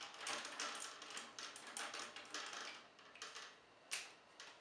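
Hard plastic toy parts clicking and tapping as the Koragg figure is pegged onto the Catastros horse: a light, irregular run of small clicks that thins out, with one sharper click about four seconds in.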